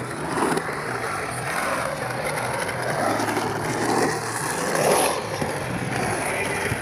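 Skateboard wheels rolling over a concrete bowl, a rumble that swells and fades several times as the rider carves through the transitions.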